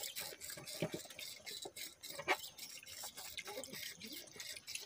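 Piglets eating wet mash from a trough: faint, irregular chewing and slurping with scattered small clicks.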